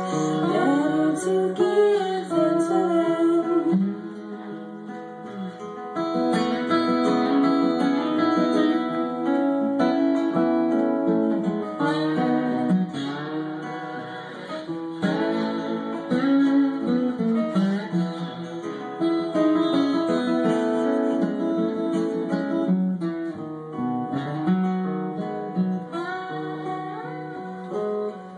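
Two acoustic guitars playing live, with a quieter stretch about four seconds in.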